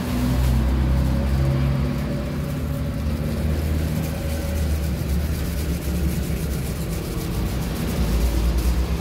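A steady low engine rumble with a faint hum over it, holding level throughout.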